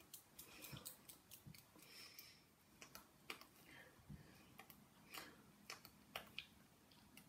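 Near silence with faint, irregular soft clicks and brushing sounds from a person's hands, sleeves and lips while signing.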